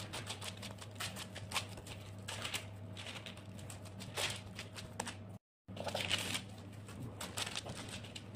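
Hands patting and pressing minced meat flat on parchment paper: soft, irregular slaps and paper rustles over a faint steady hum, broken by a brief dropout to silence a little past the middle.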